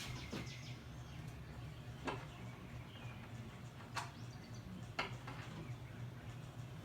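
Three faint, sharp clicks, spaced about two seconds and then one second apart, over a low steady hum.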